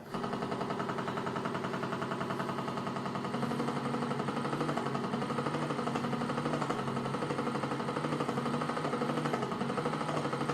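Small electric motor of a homemade ice cream maker switched on suddenly and running steadily, with a fast, even pulsing.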